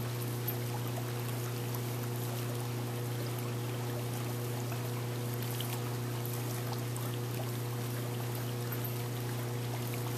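Pool filter pump running with a steady, unchanging hum, over light sloshing and trickling of water as a dog swims.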